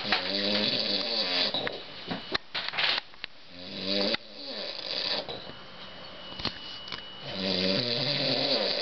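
A sleeping man snoring: long, rasping snores a few seconds apart, three in all.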